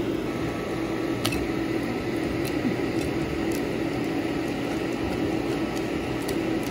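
A steady fan-like hum runs throughout, while a wire whisk stirs thick wet batter in a glass bowl, giving a soft squishing with a few light clicks as it touches the glass.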